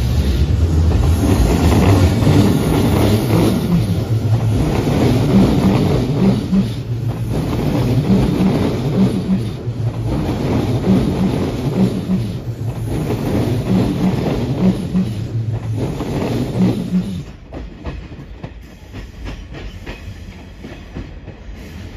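Electric commuter train running out past the platform close by, a heavy rumble with a clickety-clack of wheels over rail joints in pairs. The train fades off sharply about seventeen seconds in.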